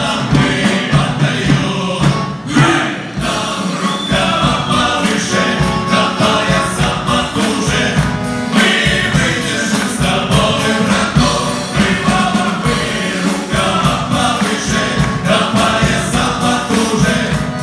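Male vocal ensemble singing together through stage microphones, accompanied by a button accordion over a steady beat.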